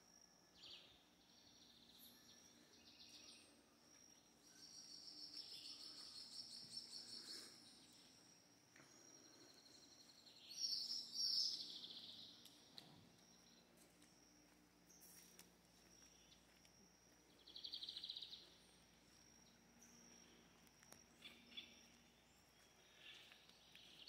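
Faint outdoor forest ambience: birds giving several high trilled calls, the loudest about ten seconds in and another near the end, over a steady thin high insect tone.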